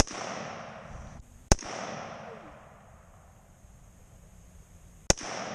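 AR-15 rifle fired three times at a slow pace, once right at the start, again about a second and a half later, and once more about five seconds in. Each sharp crack is followed by an echo that dies away over about a second.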